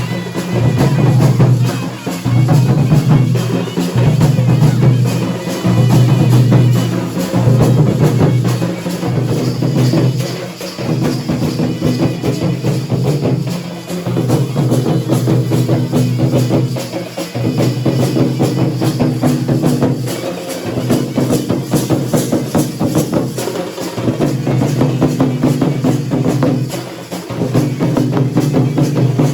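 Indian folk drums played in a fast, dense, driving rhythm, with heavy low strokes swelling in groups about every two seconds.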